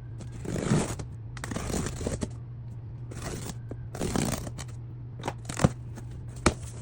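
Mailed package being opened by hand: paper or cardboard packaging rustling and tearing in several short bursts, with two sharp clicks near the end.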